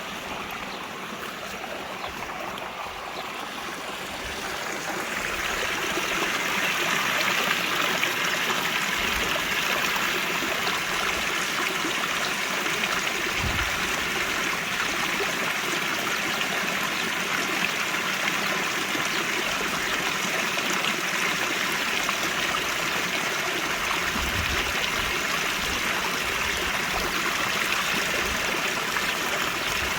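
Running water from small cascades and a stream, rushing and splashing steadily; it grows louder about five seconds in and then holds level.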